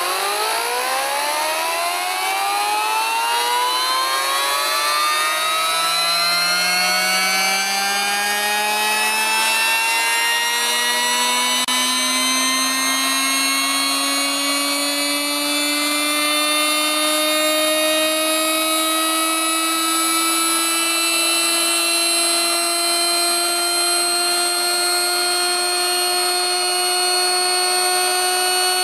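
Small compressed-air motor, driven by air from a trompe ram, spinning up from a standstill: a whine that rises steeply in pitch over the first several seconds, then levels off into a steady high running hum.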